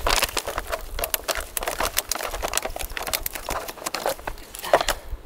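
A foil-lined food pouch crinkling as it is handled and squeezed in gloved hands: a dense run of quick, irregular crackles.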